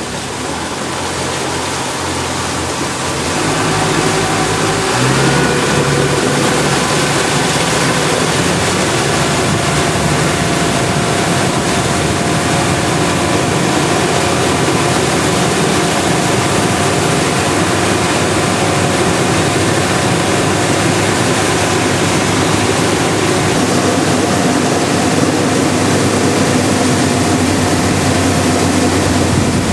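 Motorboat engine picking up speed about four seconds in, then running steadily at cruising speed, with water rushing past the hull.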